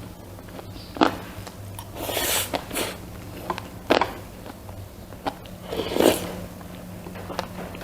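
Eating sounds close to the microphone: sharp bites about one, four and six seconds in, with chewing between them, over a steady low hum.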